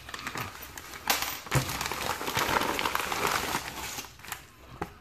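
Plastic mailing envelope crinkling and rustling as hands handle it, in a dense burst for a few seconds in the middle with sharp crackles.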